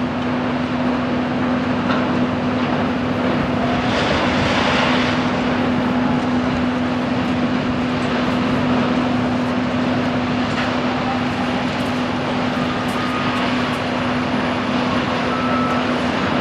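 Class 66 diesel-electric freight locomotive's two-stroke V12 engine running with a steady drone as it hauls a container train towards the listener, with a brief louder rush about four seconds in.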